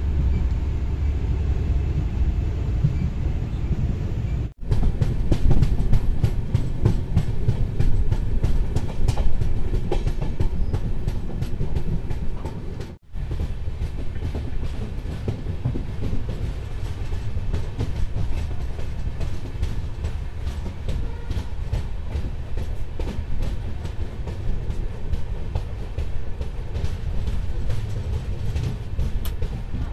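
Coaches of the Panvel-Nanded express train running on the track: a steady low rumble with a rapid clatter of wheels over rail joints, denser and sharper after about four seconds. There are two brief gaps, about four and thirteen seconds in.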